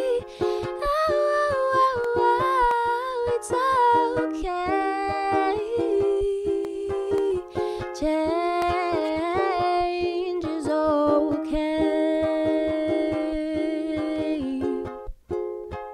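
A woman sings a melody without clear words over a strummed ukulele. Her voice stops near the end, leaving the ukulele strumming alone.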